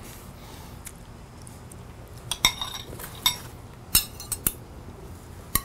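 Butter knife clinking and scraping against a plate while cutting tender smoked meat: quiet at first, then a scatter of sharp, briefly ringing clinks from about two seconds in.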